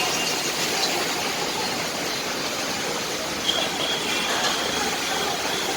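Heavy monsoon rain and strong wind: a dense, steady hiss of rain.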